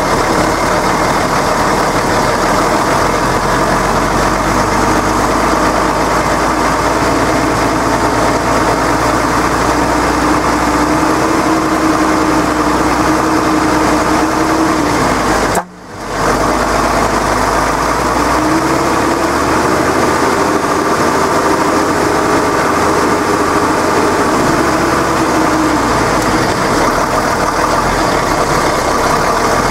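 Deutz-Fahr tractor's diesel engine running steadily while towing an off-road vehicle out, its note rising and easing off a little at times. The sound cuts out briefly about halfway through.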